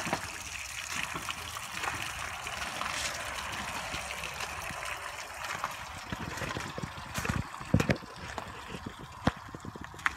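Water trickling and splashing steadily, with a few sharp clicks in the second half.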